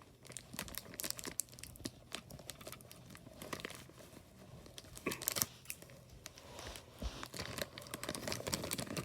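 Plastic blind-bag toy packaging crinkling and tearing as it is worked open by hand, with a run of small crackles and a louder crackle about five seconds in.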